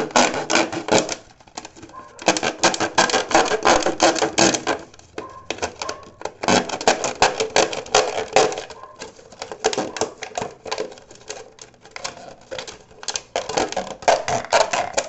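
Kitchen knife sawing through a thin clear PET plastic bottle. The stiff plastic crackles in rapid clicks, in runs of a few seconds with short pauses.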